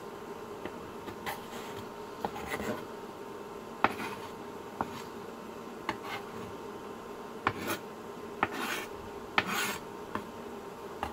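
Kitchen knife slicing green onions on a plastic cutting board: irregular sharp taps of the blade striking the board, about a dozen, with a few short scraping swishes of the blade across the board.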